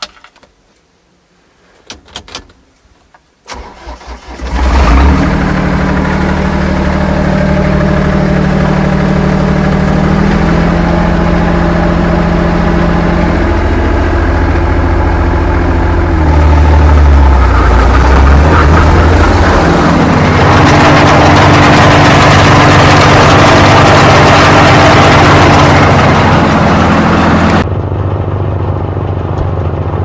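Lombardini LDW 1503 three-cylinder diesel of a ProTrac MT8 minitractor cranked by the starter about three and a half seconds in, catching after a brief crank and then running loudly. The engine speed shifts up and down several times as it runs.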